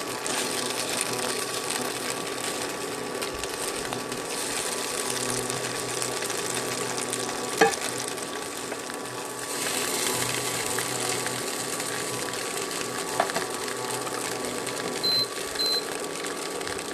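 Seitan sausages sizzling as they fry in a pan, a steady hiss over a constant electric hum. There is a sharp click about halfway through and a few short high beeps near the end.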